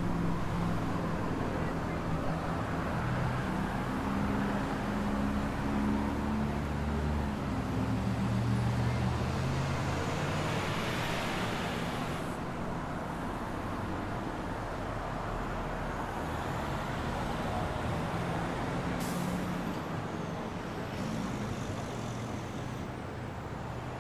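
City street traffic with a heavy vehicle's engine running close by, its low hum strongest in the first half. A hiss rises about ten seconds in and cuts off suddenly, and a single sharp click follows later.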